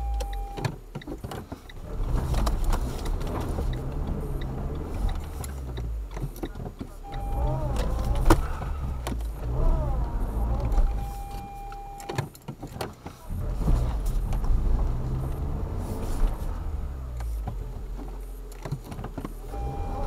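Renault Duster's engine revving up and down under load as the car spins its wheels and works to free itself from deep snow, with sharp knocks from the car, the loudest about eight seconds in. A steady high beep comes and goes several times.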